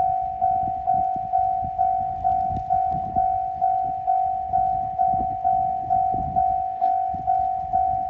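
Japanese railroad crossing alarm ringing: an electronic bell tone struck steadily at about two strokes a second, each stroke fading before the next. A low, uneven rumble runs beneath it.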